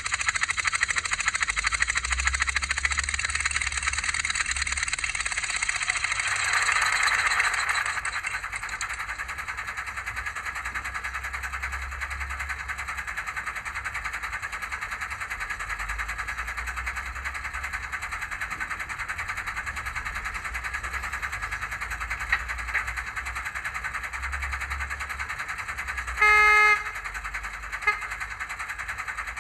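Digitrains' DCC sound file for a Ruston and Hornsby 88DS diesel shunter, played by a Zimo decoder through a small model-loco speaker. The engine sound runs louder for about the first eight seconds, then settles to a steady quieter run, and a short horn toot sounds near the end.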